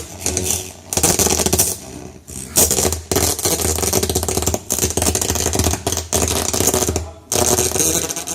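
Microlab B77 speakers putting out heavily distorted, crackling sound over a steady low buzz, dipping and cutting out several times. This is the speakers' defect: badly distorted output at low volume that appears once the left speaker is connected.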